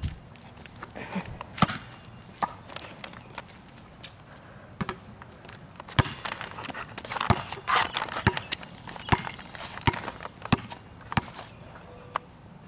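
Basketball bouncing on a concrete court: a string of sharp, irregular thuds.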